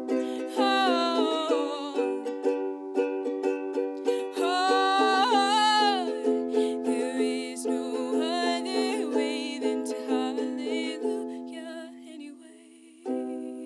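Ukulele strummed in a steady rhythm with a woman singing long held notes over it in the first half. The strumming thins and fades, then a last chord is struck and rings near the end, closing the song.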